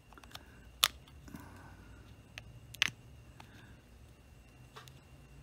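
A handful of sharp, separate clicks of hard plastic as the opened FLIR ONE thermal camera body is handled. The loudest come about a second in and near three seconds, with smaller ones near the end, over a faint low steady hum.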